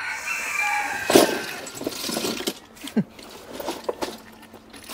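A rooster's crow trailing off at the start, then eating sounds from a snail meal: a loud, rough slurping noise about a second in, followed by a few sharp clicks of snail shells.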